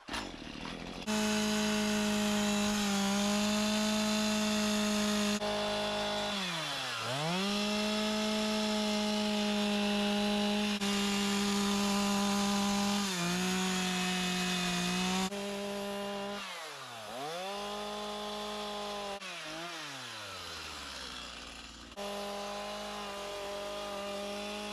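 Chainsaw cutting limb details into a wooden tree carving, running at high revs. Its engine pitch drops and climbs back up several times as the throttle is eased off and squeezed again.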